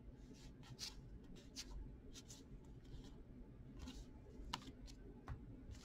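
Faint, irregular soft swishes and flicks of cardboard hockey trading cards being slid one behind another by hand, about a dozen in all.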